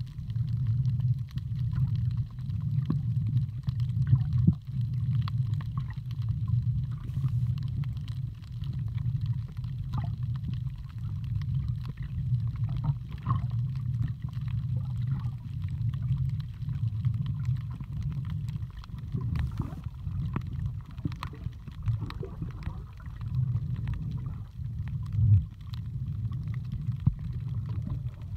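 Underwater ambience: a steady, muffled low rumble of moving water, with faint scattered clicks.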